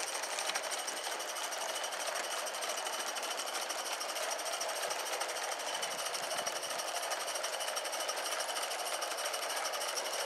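Accucraft live-steam model of the Lynton and Barnstaple locomotive Lew running under steam: a rapid, even chuffing beat over a steady hiss.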